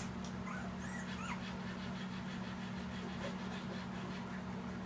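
Two-week-old Siberian husky puppies giving a few faint, short rising squeaks and whimpers while nursing, over a steady low hum.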